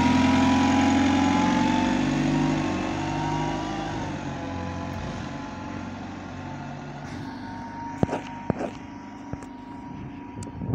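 Alexander Dennis Enviro200 single-decker bus pulling away and driving off: its engine and a high whine, loudest at first and fading as it moves away. A few sharp clicks near the end.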